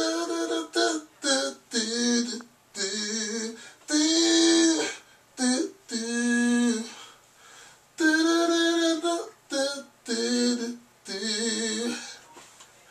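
A man singing a melody without accompaniment, in about ten short phrases of held notes with brief pauses between them.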